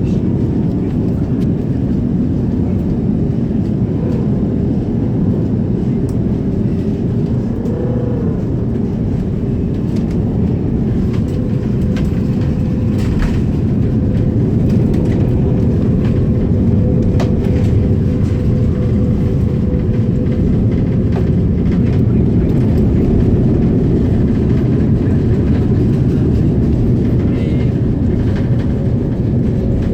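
Airliner cabin noise: the steady low rumble of jet engines and rushing air heard from inside the passenger cabin as the plane comes in to land. A faint thin whine sits on top for a while, and the rumble grows slightly louder partway through.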